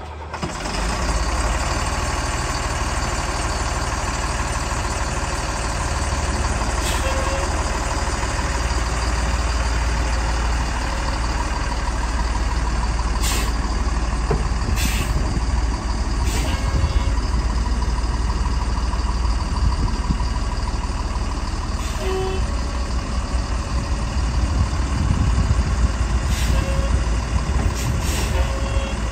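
Freightliner M2 box truck's diesel engine idling steadily, with a heavy low rumble and a few brief sharp sounds over it.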